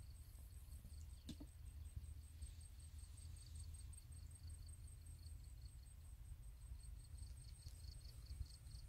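Faint high-pitched insect trilling, a fast pulsing chirp with a second, lower pulsing chirp under it, over a steady low rumble.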